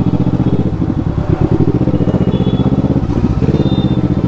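Kawasaki motorcycle's inline-four engine running steadily, with a loud, evenly pulsing exhaust.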